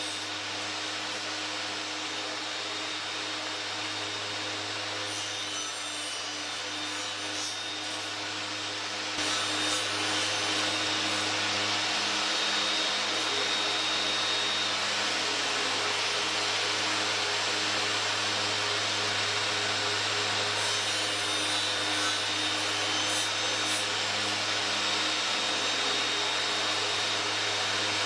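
Electric power-tool motor running steadily, stepping up louder about nine seconds in, with a few faint clicks.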